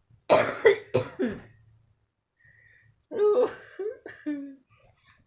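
A man coughing several times, then, about three seconds in, a baby laughing.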